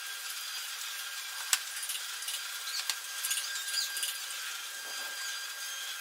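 Wood being worked with a hand tool: a steady scraping sound, with one sharp click about one and a half seconds in and a few faint squeaks later.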